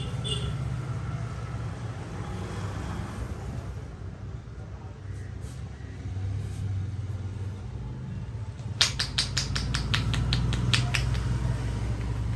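A barber's hands giving a percussive head massage: a fast run of sharp slaps, about six a second, starts about nine seconds in and lasts a couple of seconds, over a steady low rumble.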